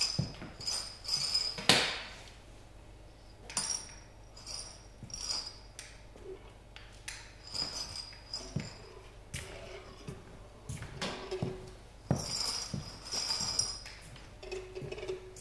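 Irregular clinking, jingling and tapping of small hard objects being handled and shaken, in short scattered bursts, with a sharper knock about two seconds in. A faint low hum sounds briefly twice in the second half.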